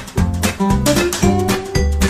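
Instrumental background music with a steady beat and a melody over it.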